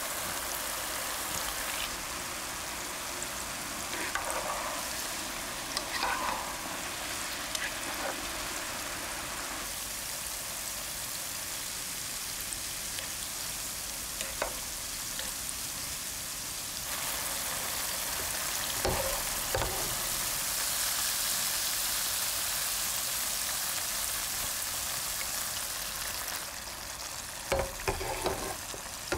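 Potato balls deep-frying in hot oil in a small pot: a steady bubbling sizzle that grows louder about halfway through. A few light knocks of chopsticks and a metal skimmer against the pot break in, the loudest near the end.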